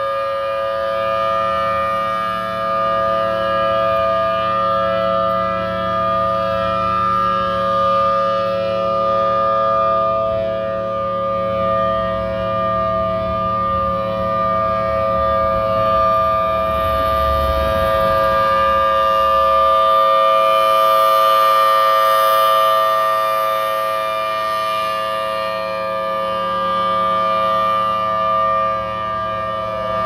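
Federal Signal Thunderbolt 1000T outdoor warning siren sounding its monthly test. It holds a steady wail of several tones at once, swelling and fading slowly as the horn rotates. A low rumble comes through around the middle.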